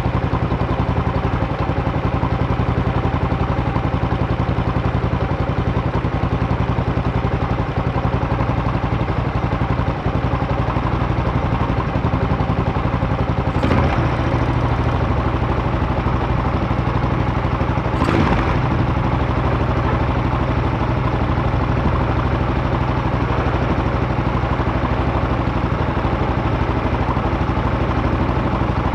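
Buell Blast's 492 cc single-cylinder engine idling steadily while warming up. Two brief louder noises sound about four seconds apart near the middle.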